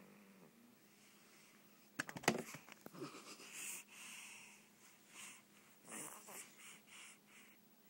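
A 5-week-old baby's noisy, wheezy breathing in its sleep: a burst of crackling about two seconds in, then a run of quick, hissing snore-breaths.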